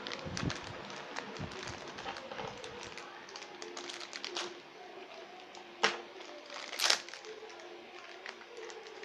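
Clear plastic bag crinkling and crackling as it is handled and cut open with a knife. There are two louder, sharper crackles about six and seven seconds in.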